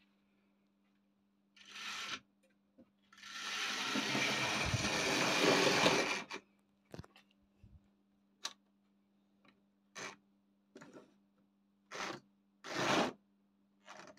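Tri-ang model Jinty tank engine running along the track with its van: a whirring, rattling run of motor and wheels that grows louder for about three seconds. It is followed by a series of sharp clicks as point levers are thrown.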